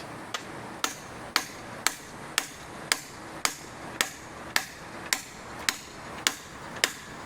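Hammer blows on a seized cylinder head bolt of a 1997 Johnson 115 OceanRunner outboard, a steady series of sharp strikes at about two a second, trying to shock the stuck bolt loose.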